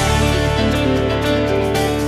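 Instrumental background music led by guitar, with held notes over a steady pulse.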